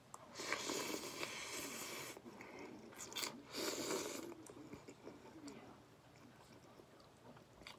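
Slurping soup from a porcelain spoon: a long slurp starting about half a second in, then a second, shorter slurp after about three and a half seconds.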